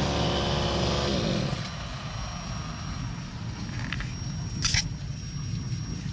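Petrol brush cutter engine dropping from high revs, its pitch sliding down for about a second and a half, then running at a low idle. There is a single sharp click near the end.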